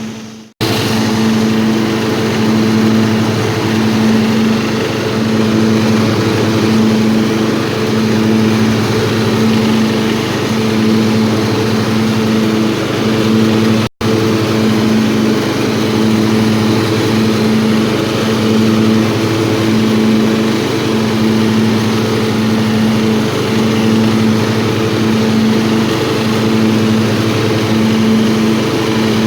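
Small single-cylinder-type engine of an old riding lawnmower running steadily, its note pulsing at an even rhythm a little slower than once a second. The sound cuts out briefly twice, just after the start and about halfway through.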